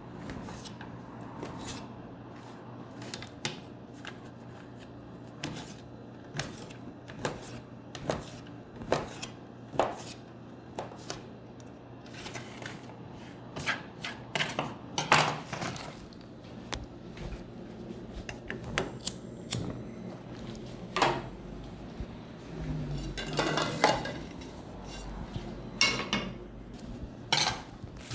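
Dishes and cutlery being handled, with scattered clinks and knocks that come thicker and louder about halfway through, over a steady low hum.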